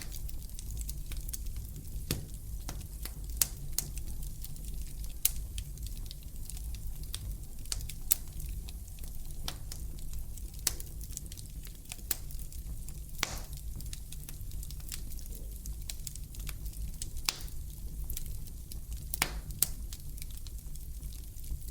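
Fire in a fireplace crackling: irregular sharp pops and snaps, a few louder than the rest, over a low steady rumble.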